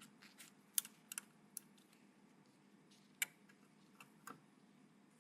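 Sparse sharp clicks and light taps of PC hardware being handled, about half a dozen spread unevenly, with a faint steady hum underneath.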